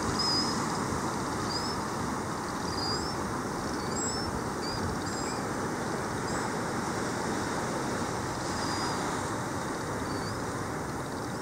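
Steady rush of wind and surf on an exposed sea cliff, with small birds giving short, high chirps, most of them in the first half.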